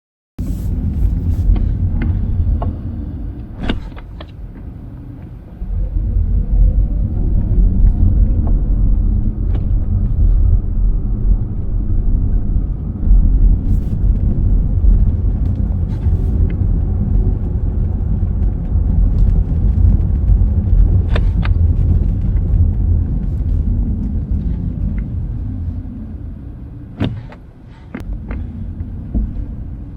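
A 2023 VW ID.3 driving slowly with a steady low road rumble. Scattered through it are a number of short sharp clicks, the kind the owner hears at low speeds along with a slow-returning brake pedal and suspects come from the electric brake booster.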